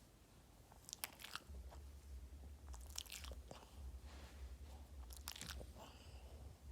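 Boston terrier chewing and crunching on something, in three short bouts of crisp clicks about two seconds apart, over a faint low hum.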